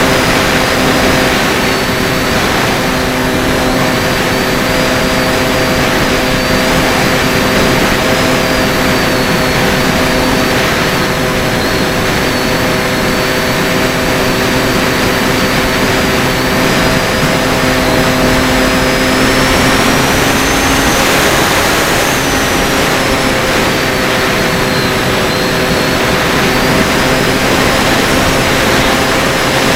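FPV racing drone's brushless motors and propellers running steadily, a high whine wavering above a steady hum and rushing noise, with the pitch rising briefly about twenty seconds in as the throttle changes.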